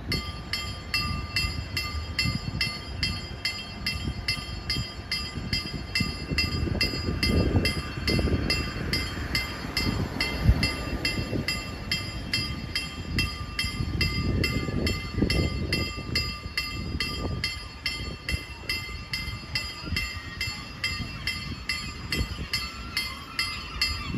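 Electronic level-crossing warning bell ringing in a fast, even repetition, starting abruptly about when the signals activate. Under it runs an uneven low rumble that swells twice.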